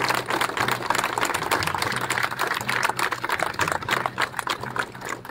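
Applause: a small crowd clapping steadily, many hands overlapping.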